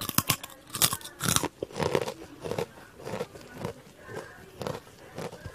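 A crunchy snack bitten with a few sharp crunches, then chewed with open, crunchy chewing about twice a second.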